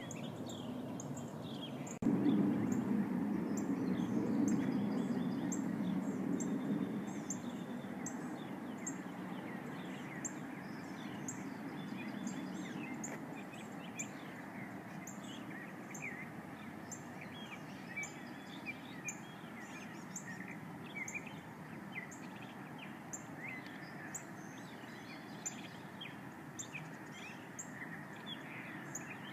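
Low, steady roaring drone of unidentified origin, of the kind reported as a 'strange sound' phenomenon, with many birds chirping over it. The drone jumps suddenly louder about two seconds in, then slowly fades over the following seconds.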